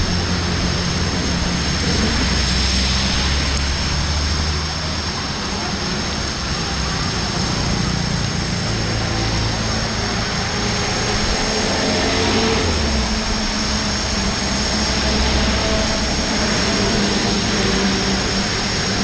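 Heavy rain falling steadily on a flooded street. Cars and trucks drive past through the water, their engines running low and changing pitch every few seconds.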